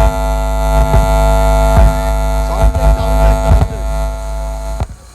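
Electronic music reduced to a steady buzzing electrical hum with a stack of even overtones, struck by heavy low thumps about once a second. The whole sound cuts off suddenly near the end.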